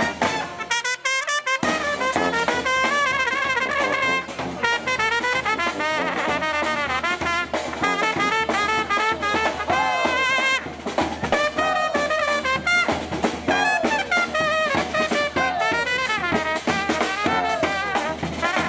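A marching street brass band playing a lively tune: trumpet, trombone and saxophones over a bass drum with a mounted cymbal and a snare drum. The low end drops out briefly about a second in, then the full band plays on.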